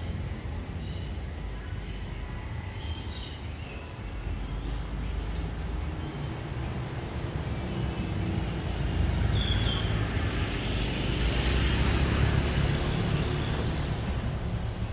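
Steady outdoor background rumble that swells louder for a few seconds from about nine seconds in, with a faint steady high pulsing tone running through it.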